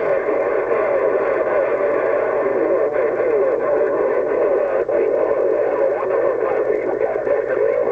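CB radio receiver on 27.025 MHz (channel 6) playing a steady jumble of overlapping transmissions through static: garbled, warbling voices and tones with no clear words, heard through the radio's narrow, tinny audio.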